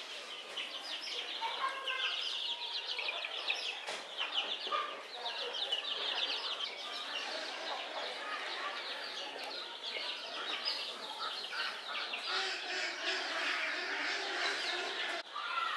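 A large flock of brown hens calling together: many short clucks and chirps overlapping without a break.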